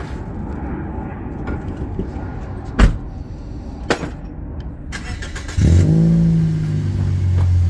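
A car engine starts about five and a half seconds in, flaring briefly and settling into a steady low idle. Before it, low background noise with a sharp knock about three seconds in.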